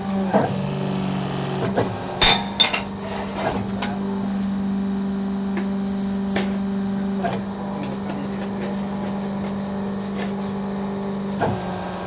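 Hydraulic power unit of a fly ash brick machine running: its electric motor and pump give a steady hum. Several sharp metallic knocks and clanks sound over it as the valve lever is worked.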